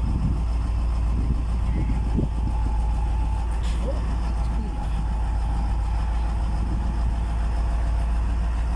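Hyundai D8AV diesel engine of a 12-wheel self-loading truck running steadily at low revs.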